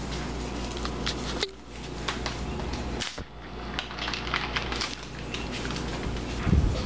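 Plastic crinkling and small irregular clicks as gloved hands work open a plastic tub of Cool Whip whipped topping, over a steady low hum.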